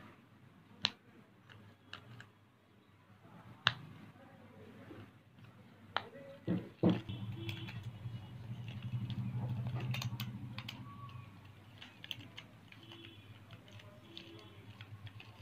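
Silicone pop-it fidget spinner being pressed, with a few sharp single pops spaced seconds apart and a quick cluster of them about six to seven seconds in. After that a low steady rumble comes in, with faint light ticks over it.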